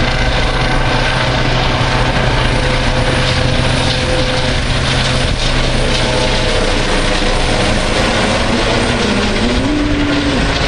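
Air ambulance helicopter flying overhead and moving away, its rotor and engine noise steady and loud, with a low hum that fades about halfway through as it draws off.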